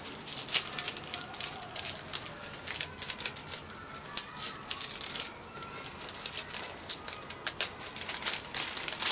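Tissue paper crinkling and rustling as it is pulled open inside a cardboard box, in quick irregular crackles with a short lull about halfway through.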